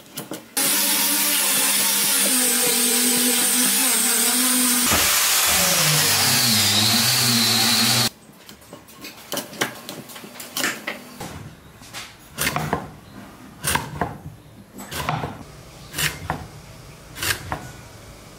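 For the first eight seconds a loud steady hum with a high whine over it, changing pitch about five seconds in and cutting off abruptly. Then the blade of a homemade wooden lever-arm vegetable slicer chops down through a carrot about once a second, each cut a sharp knock on the wooden board.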